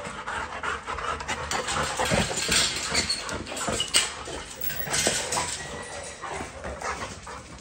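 Excited dog vocalizing at a wire-mesh kennel gate, mixed with metallic rattles and clicks of the gate, with a sharp clank about four seconds in as the latch is worked.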